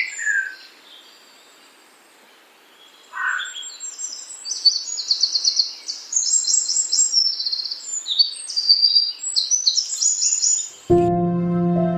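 Songbirds singing, a run of fast, high, repeated trills and chirps after a brief lull. Background music comes in near the end.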